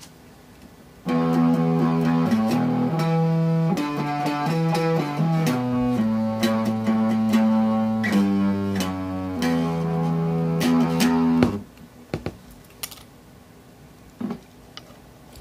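Electric guitar played through a breadboarded Badass Distortion fuzz circuit, clipped by an opposing pair of germanium diodes: a riff of notes and chords that stops abruptly about eleven seconds in. A few faint clicks follow near the end.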